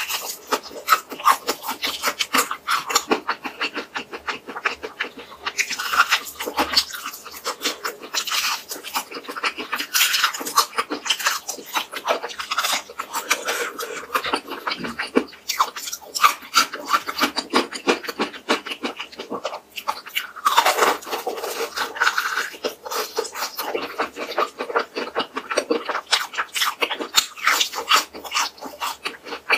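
Seasoning-coated crispy fried chicken being bitten and chewed: a dense run of crisp crunches and wet mouth sounds, louder in stretches.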